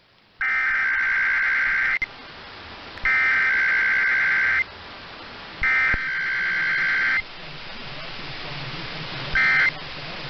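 Emergency Alert System SAME digital header: three loud bursts of two-tone data squawk, each about a second and a half long and about a second apart, with radio hiss between. Near the end a much shorter burst of the same squawk follows, the start of the end-of-message code.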